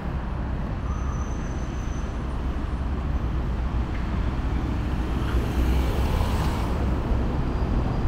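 Steady low rumble of vehicle noise, swelling with a rushing hiss about five to seven seconds in.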